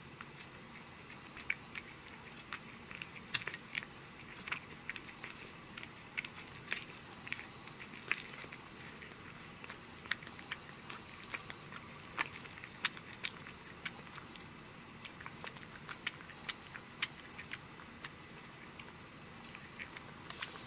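A tabby cat chewing and biting a whole grilled sardine, with many irregular, sharp little clicks and crunches of teeth on the fish throughout.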